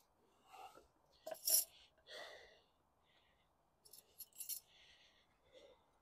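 Small steel hub parts (washers, nuts and split pins) clinking and scraping against each other and the ground as they are picked up and laid out. The loudest clink comes about one and a half seconds in, and a quick run of clicks follows around four seconds in.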